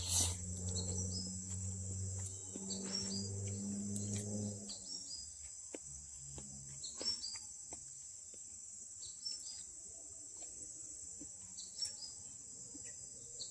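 Steady high-pitched insect chorus, with scattered short clicks. A low hum underneath stops about four and a half seconds in.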